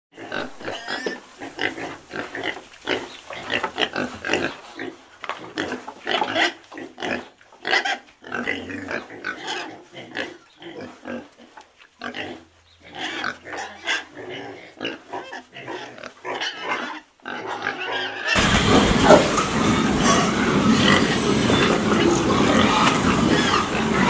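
Pigs grunting and squealing in short, irregular, overlapping calls. About eighteen seconds in, the sound cuts abruptly to a louder, continuous dense din.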